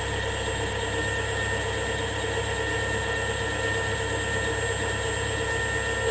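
Milling machine running steadily with a 12 mm high-speed steel roughing end mill cutting a step, a constant low hum with several steady whining tones above it.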